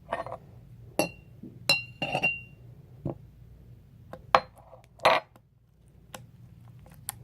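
A spoon clinking and scraping against a glass cup while mixing slime: a series of separate clinks, two of them ringing briefly.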